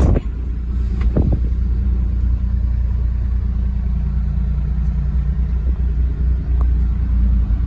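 Kubota diesel engine of a Bobcat E27Z mini excavator running steadily at idle, with a couple of light clicks about a second in.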